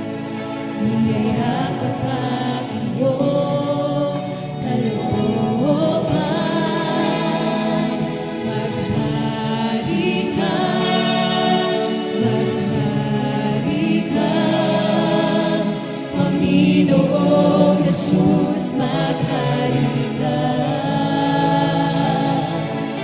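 Contemporary worship band playing a Tagalog praise song, with a woman's lead voice and other singers joining over electric guitar, bass, drums and keyboard.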